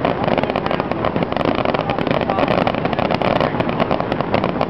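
Fireworks display: a dense, continuous barrage of sharp pops and crackling, with no break.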